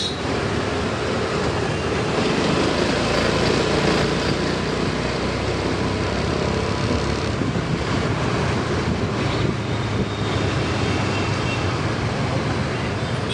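Steady ride noise from a motor scooter moving along a city street: its engine running, with wind and road noise and passing traffic around it.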